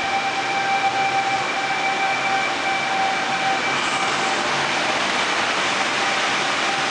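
Sydney Trains C-set double-deck electric train (sets C3 and C12) departing the platform and running past, a steady rumble with a high whine that fades out about halfway through.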